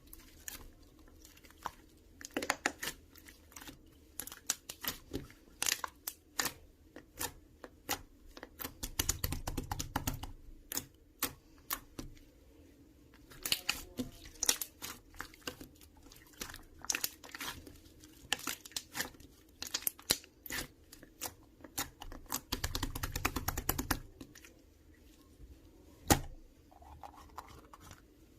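Irregular sharp crackles and clicks of something crinkling or tearing, close to the microphone in a small room, thickening into two denser crackling stretches about nine and twenty-three seconds in, with one loudest sharp snap near the end.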